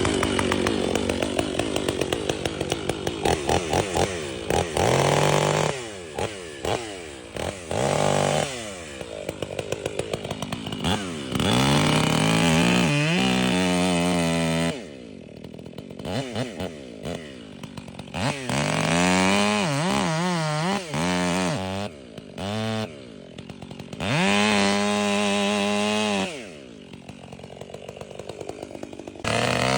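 Stihl MS 500i fuel-injected two-stroke chainsaw revved over and over, climbing from idle in quick throttle blips and several full-throttle runs of a couple of seconds, then dropping back to a ticking idle between them.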